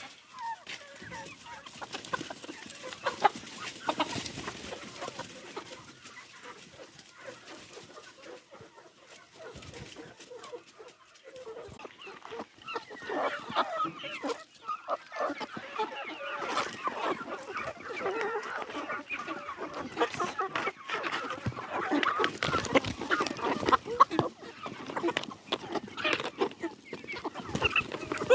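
A flock of backyard chickens clucking, busier and louder from about twelve seconds in.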